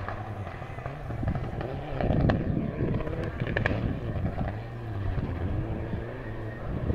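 Rally car engine at full throttle on a gravel stage, its pitch rising and falling as it revs through the gears, with a few sharp cracks along the way.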